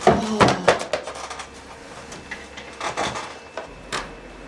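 A quick run of knocks and clatters as a folder and other items are handled hurriedly on an office desk, followed by a few scattered knocks.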